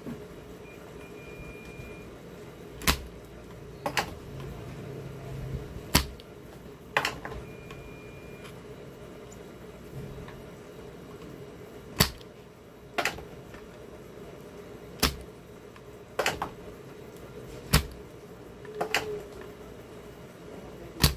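Sharp clicks and taps of desoldering work on a TV power-supply board, about eleven of them coming irregularly a second or two apart, over a steady low hum.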